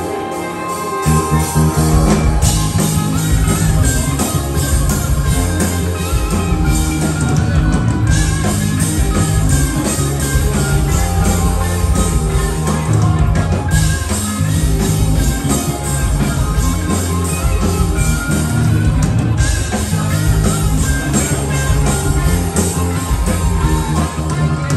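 Live rock band playing loud, with guitar, bass and a drum kit driving a steady beat.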